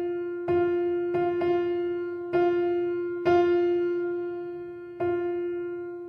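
Background music: slow, sparse notes struck one at a time, each left to fade, mostly on the same pitch.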